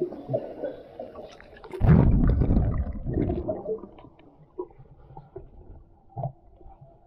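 Muffled pool water sloshing and gurgling right at the microphone, with a heavy low rumble from about two seconds in for a second and a half, then scattered small knocks and splashes.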